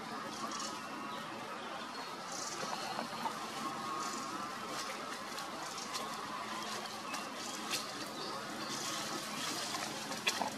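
Steady outdoor background noise with faint high chirps. A few sharp crackles of dry leaves come as the monkeys shift on the leaf litter, the loudest near the end.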